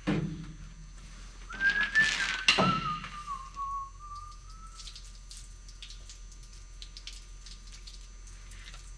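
Old rubber fuel line being pulled out of a race car: a thump, then about a second and a half of scraping with a sharp click. A whistle-like tone falls slightly in pitch and holds for about three seconds.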